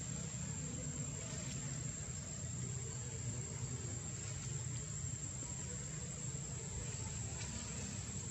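Steady outdoor ambience: a high-pitched insect drone that holds one note throughout, over a low rumble.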